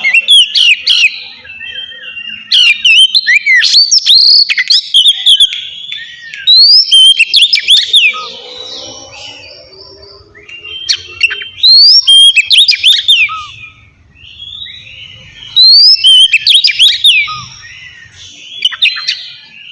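Oriental magpie-robin singing in the loud, clear 'ngeplong' style: bouts of sharp whistled notes that sweep up and down, about five bursts separated by short pauses.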